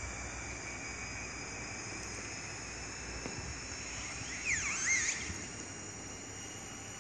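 Steady high-pitched chirring of insects such as crickets or cicadas. A short run of quick sweeping chirps, rising and falling, comes about four and a half seconds in.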